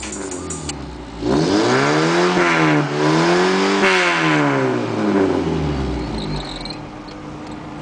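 VW Rabbit Pickup's gasoline four-cylinder engine revved twice with the truck standing still: the pitch climbs, dips briefly, climbs again, then falls back toward idle.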